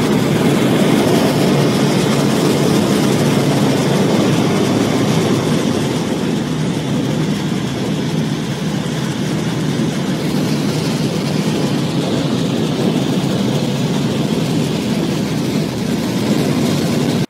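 Small single-engine light aircraft's engine and propeller running steadily, heard inside the cockpit along with the rush of air, as the plane descends low over a grass airstrip. The noise eases slightly for a few seconds around the middle and cuts off suddenly at the end.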